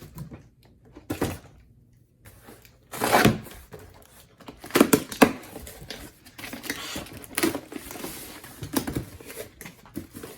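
A cardboard box of packed hive parts being opened and unpacked by hand: irregular knocks and bumps, with rustling of packaging that carries on through the second half.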